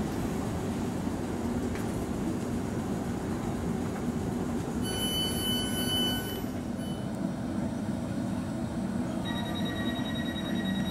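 South Western Railway electric train standing at the platform with a steady low hum. A steady electronic beep sounds for about a second and a half about five seconds in, as its doors open. From about nine seconds in, a fast pulsing beep begins.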